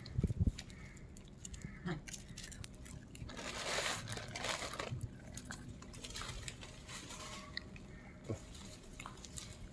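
Faint crunching and crackling of crisp gram flour snacks as rhesus macaques bite and chew them, with scattered small clicks. A couple of low thumps right at the start.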